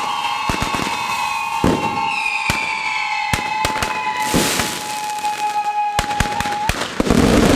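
Fireworks mounted on a Catalan fire-dragon figure going off. A steady shrill whistle from whistling fireworks runs under many sharp, irregular firecracker bangs. The whistle cuts off near the end as a loud rush of crackling and bangs takes over.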